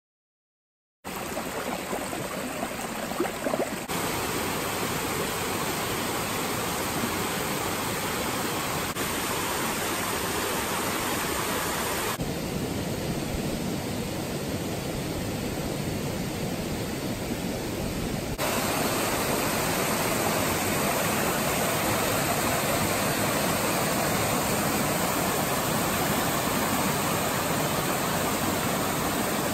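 Steady rushing of water over a small rocky cascade, in a run of short outdoor clips whose background noise shifts at each cut and grows a little louder in the final stretch.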